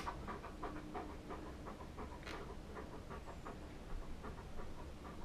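Dog panting quickly and evenly, about four to five breaths a second, with one brief louder hiss about two seconds in.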